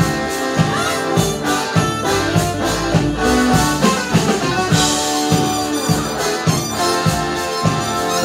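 A live band playing an instrumental passage: keyboards with a brass-like sound over a steady drum beat.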